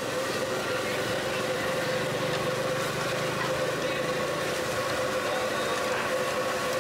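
Steady mechanical hum over a general background of noise, with no break or sudden sound.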